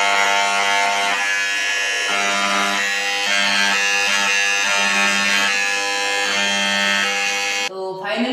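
Handheld electric engraving pen buzzing steadily as its vibrating tip cuts a name into a steel plate. The buzz wavers slightly as the tip is moved and cuts off suddenly near the end.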